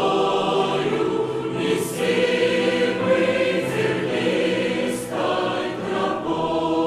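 A choir singing a slow hymn in harmony, holding each chord for a second or two.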